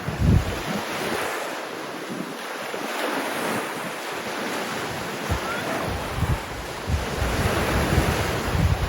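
Sea waves washing onto the shore in a steady, swelling hiss, with gusts of wind buffeting the microphone in low rumbles at the start and again through the second half.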